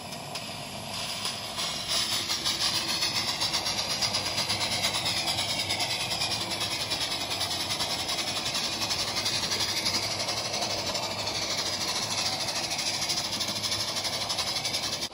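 Live steam 1:29 scale Accucraft USRA 0-6-0 locomotive under way, heard close up: a steady hiss of steam with a fast, even beat of exhaust chuffs.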